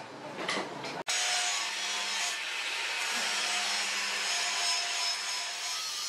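Abrasive tool working a steel blade: a few short strokes, then, after a sudden brief break about a second in, a steady hiss.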